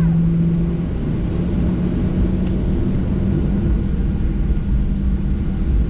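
Cabin noise of a Boeing 737-700 taxiing onto the runway: the CFM56-7B engines' steady low hum at taxi power over a rumble. The hum steps slightly higher in pitch about a second in.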